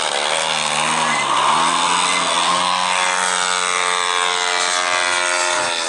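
100cc two-stroke petrol engine of a large radio-controlled aerobatic model plane, running hard in flight. Its pitch dips and climbs again in the first two seconds, then falls slowly over the last few seconds.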